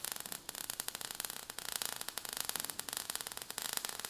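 Spark sound effect: a steady high hiss with rapid, irregular crackles.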